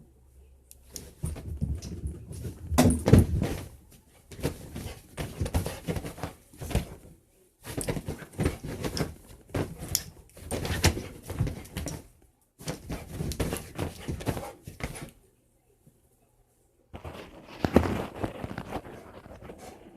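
A dog's paws scrambling and thudding on the floor in bursts of quick clicks and knocks as it chases a laser dot, with a short pause about three quarters of the way through.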